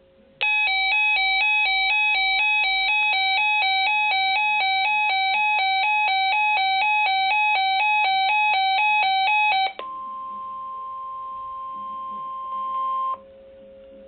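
Reecom R-1630 NOAA weather radio's built-in alert alarm, a loud electronic beeping that rapidly alternates in pitch for about nine seconds on receiving a Severe Thunderstorm Watch. It cuts off, and a quieter steady single tone, the NWS weather radio's 1050 Hz warning alarm tone, sounds through the speaker for about three seconds before stopping.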